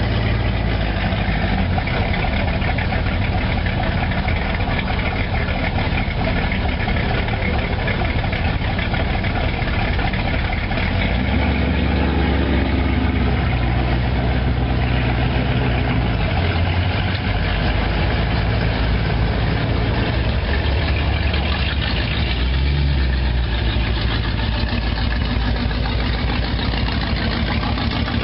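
Hot rod engines idling as the cars crawl past, a loud steady low rumble that swells and eases a few times.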